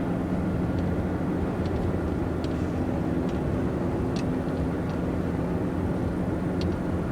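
Steady drone of a car's engine and road noise inside the moving cabin, with a few faint ticks scattered through it.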